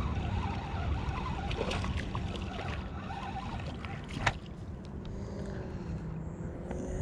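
Wind rumbling on the microphone over a spinning reel being cranked as a bass is reeled in to the bank, with a short sharp splash-like knock about four seconds in as the fish reaches the surface and is lifted out.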